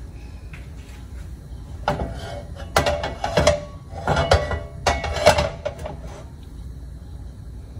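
Large metal wok being shifted on the stovetop, scraping and clattering against the burner in several rough strokes with a metallic ring, between about two and six seconds in.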